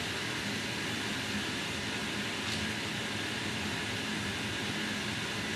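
Steady room noise, an even background hiss like a running fan, with one faint click about halfway through.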